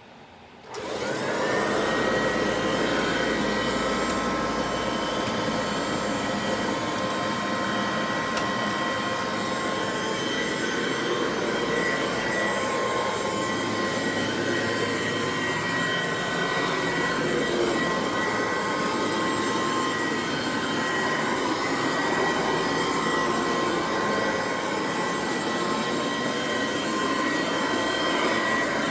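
Dual Sanitronic 80 vacuum cleaner switched on about a second in, its motor whine rising quickly to speed, then running steadily with a high whine over the rush of air.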